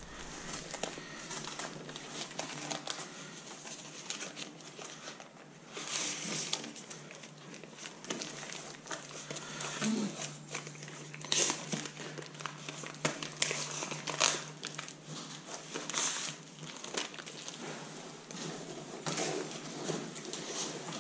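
Crinkling and rustling of tape being wrapped and pressed by hand around the joint of corrugated plastic ventilation ducts, with a few sharper crackles.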